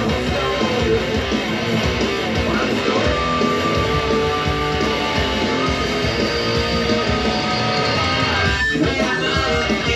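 Jackson electric guitar playing a riff through an amplifier, with a brief break about nine seconds in.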